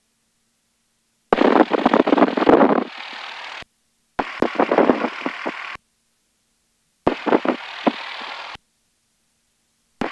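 Crackling static through the aircraft's headset audio, in bursts of about two seconds. Each burst cuts in abruptly, fades to a steady hiss and cuts off again as the squelch closes. Three bursts come in turn, and a fourth starts near the end.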